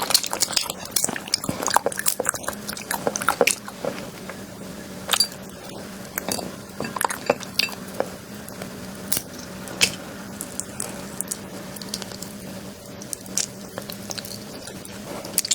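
Close-up chewing of a crunchy food: dense crisp crunches for the first four seconds or so, then slower, scattered crunches as the chewing goes on.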